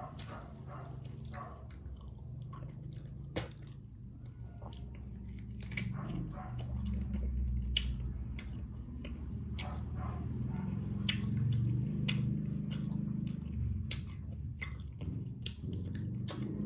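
Close-up chewing and biting of fresh native guava: irregular crisp crunches from the firm fruit and its seeds, over a steady low hum.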